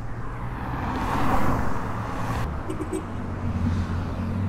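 Road traffic: a car passes by, its rush swelling and fading about a second and a half in, over a steady low engine hum.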